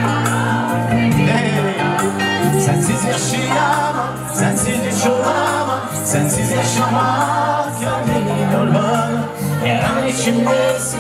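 Band music from a Turkish pop song, with steady bass notes under a wavering melody line, between the sung lines.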